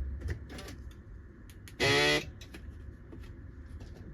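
A single loud electronic beep lasting about half a second, about two seconds in, after a few faint clicks.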